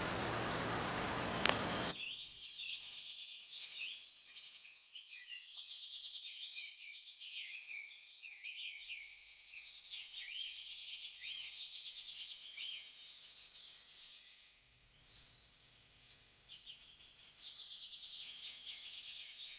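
A steady loud hiss for about the first two seconds cuts off suddenly, giving way to a dense chorus of many birds chirping and whistling with quick high-pitched notes.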